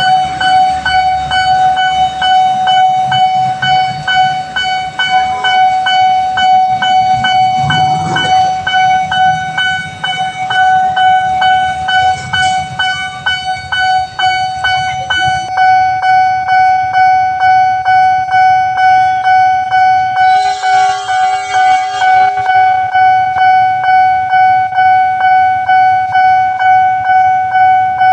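Railway level-crossing warning alarm: one steady electronic tone pulsing about twice a second, with a low rumble under the first half. A horn sounds for about two seconds around twenty seconds in.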